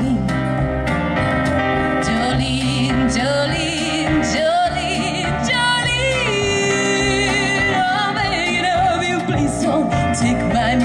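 A woman singing through a microphone and PA over musical accompaniment, holding notes with a wavering vibrato.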